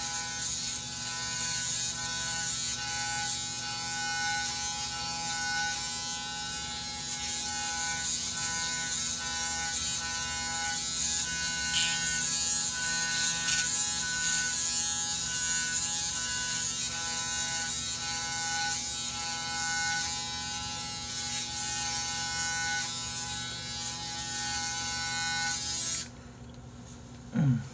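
Braun Series 9 electric foil shaver running against the face, a steady buzz as he shaves the jaw and chin. It switches off suddenly near the end.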